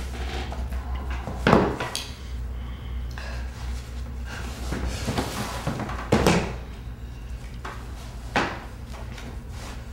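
Books, a notebook and a binder handled on a wooden tabletop: pages turning and paper rustling, with a few knocks as books and covers are set down on the wood, the loudest about a second and a half in and again about six seconds in.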